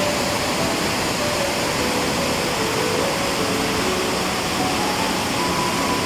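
Waterfall: a steady, even rush of falling water. Soft background music plays single held notes over it.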